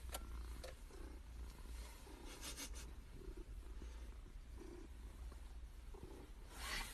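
Domestic cat purring softly, the purr swelling and fading with each breath about once a second. Brief rustling, like fur or fabric being rubbed, about two and a half seconds in and again near the end.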